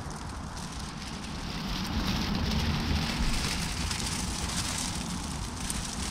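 Small wood campfire crackling, with a steady hissing noise that grows louder about two seconds in.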